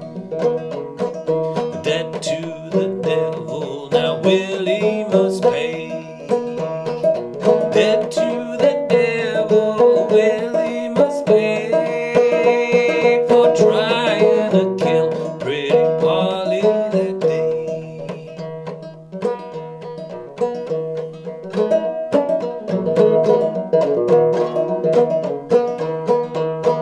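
Old fretless banjo with flush frets, Nylgut strings and a calfskin head, played clawhammer in sawmill tuning: a steady, rhythmic picked tune with the drone string ringing through.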